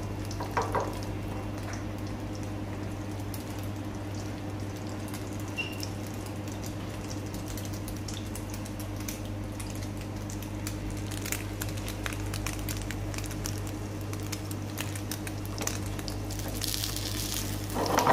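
Battered chicken breast shallow-frying in oil in a nonstick pan, with sparse, faint sizzling crackles that grow denser near the end, over a steady low hum.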